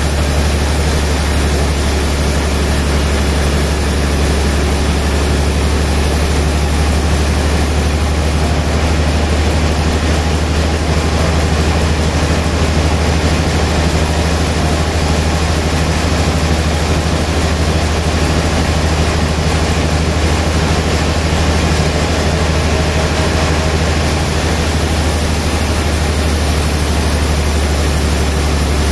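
A large sawmill log band saw running steadily, with a strong constant low hum under even mechanical noise.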